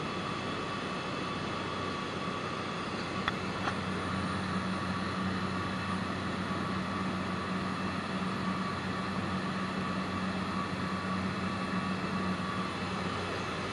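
Steady engine and propeller drone of a small high-wing plane in flight, heard inside the cabin, with a constant low hum. Two brief clicks come a little over three seconds in.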